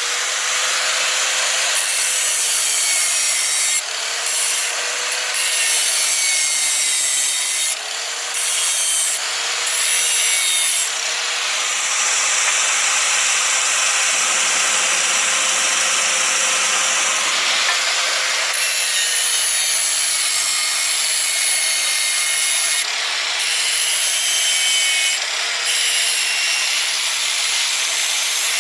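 Electric grinder running and grinding metal in a steady hiss, its motor tone sagging and recovering every second or two as it is pressed into the work, with a longer unbroken stretch of grinding near the middle.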